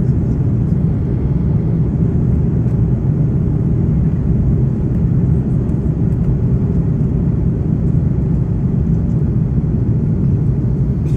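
Steady low roar of a jet airliner's engines and rushing air, heard inside the cabin on the approach to landing.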